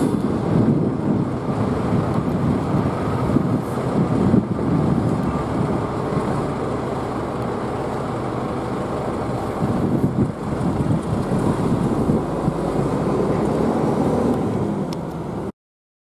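Norfolk Southern diesel freight locomotive rumbling as the train approaches around a curve, a steady low engine-and-wheel noise that cuts off suddenly near the end.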